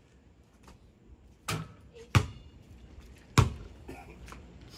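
A basketball striking the hoop about a second and a half in, then two sharp, loud bounces on the concrete court.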